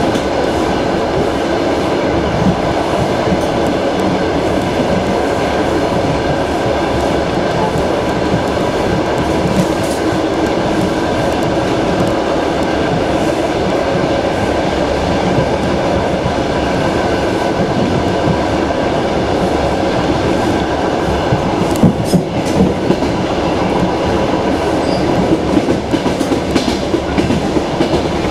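A suburban passenger train coach running at speed, heard from inside at the window: a steady rumble of wheels on the rails. A few sharp knocks come about three-quarters of the way through, and a quick run of clacks near the end.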